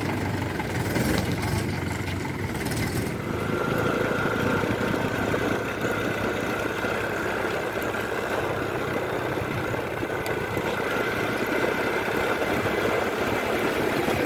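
Heavy diesel machinery engine running steadily, with a steady high whine joining about three seconds in.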